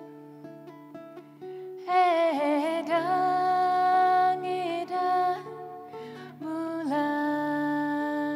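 Sape, the Bornean boat lute, plucked in short repeated notes over a steady low drone, joined about two seconds in by a woman singing a slow melody with vibrato.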